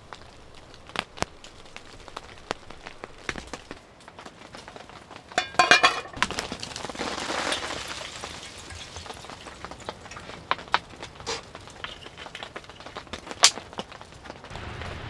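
Scattered drops tapping on a surface, with a short rapid clatter about five seconds in, then a brief swell of hiss.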